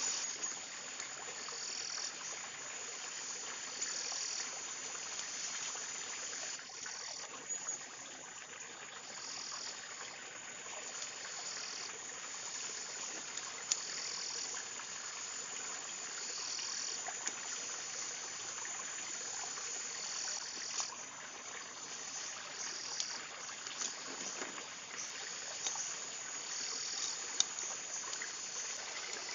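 Forest insects chirring in a steady high-pitched chorus that swells and drops back in blocks every second or two, with occasional light clicks from the plant strips being woven.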